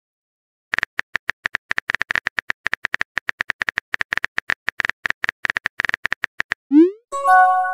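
Texting-app keyboard tap sounds: a rapid run of short clicks as a message is typed. Near the end comes a short rising whoosh and a bright chime as the message is sent.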